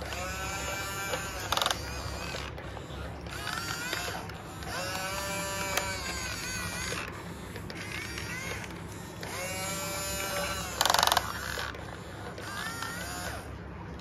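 Small electric motors of RC construction models whining in repeated runs of a second or two, each spinning up, holding pitch, then winding down. Two short, louder rattling bursts come about a second and a half in and near eleven seconds.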